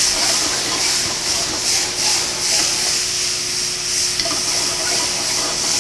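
Cherry tomatoes frying in a very hot skillet of garlic olive oil with just-added balsamic vinegar: a steady sizzle as the tomatoes blister over high heat.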